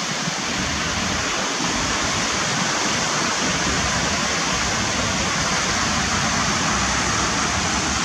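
Fountain jets splashing into their basin: a steady, even rush of falling water.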